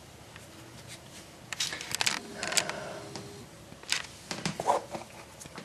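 Handling noise from a large switchblade knife: about half a dozen light, irregular metallic clicks and taps as the knife is moved and turned in the hands.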